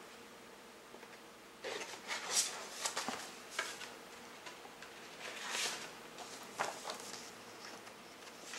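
Paper CD booklet and insert rustling as they are pulled out and handled, starting a couple of seconds in, with a few light clicks from the plastic case.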